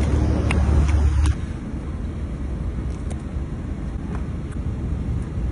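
Steady low rumble of vehicles and traffic. A heavier low rumble in the first second or so cuts off suddenly, and a few faint clicks come through.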